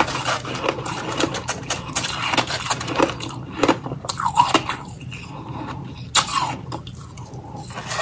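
Fingers digging and grabbing through a pile of crushed freezer-frost ice, giving a dense run of small crunches, crackles and clicks.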